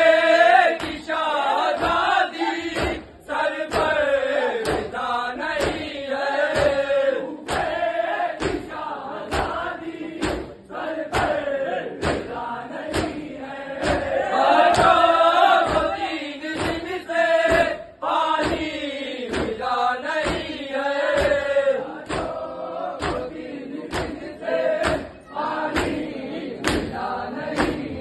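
A crowd of men chanting a noha, an Urdu mourning lament, in unison, with a steady beat of sharp hand slaps on the chest (matam) about one and a half times a second.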